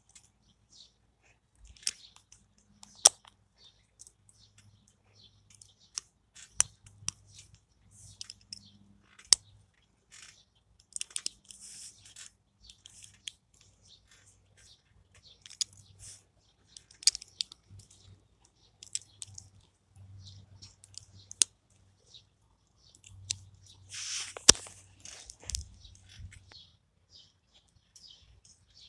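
Small plastic LEGO Technic parts being handled and pressed together: scattered sharp clicks and snaps at irregular intervals, with a longer rustling scrape late on.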